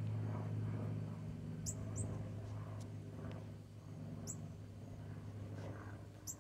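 Northern cardinal giving sharp, high chip calls: two in quick succession about 2 s in and one more a little past 4 s, over a steady low hum.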